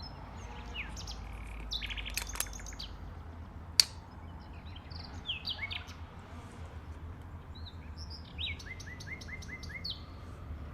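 Small birds chirping and twittering, with a quick run of short downward-sweeping notes near the end. A single sharp click about four seconds in is the loudest sound.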